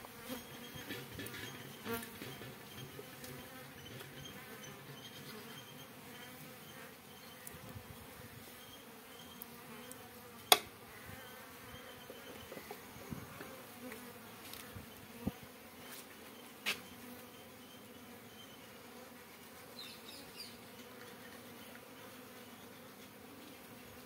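Honeybees buzzing steadily around an opened hive. A single sharp knock sounds about halfway through, with two fainter knocks a few seconds later.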